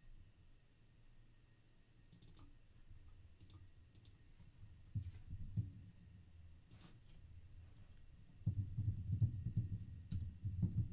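Computer keyboard being typed on: scattered key clicks, turning into a denser run of keystrokes with dull thuds about two thirds of the way in.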